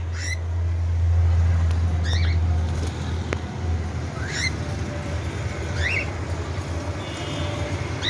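Cockatiels giving short, rising chirp calls, three or four times a couple of seconds apart, over a steady low rumble.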